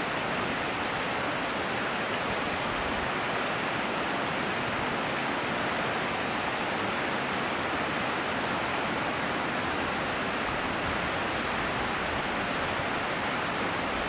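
Steady rush of flowing water, an even hiss that does not change.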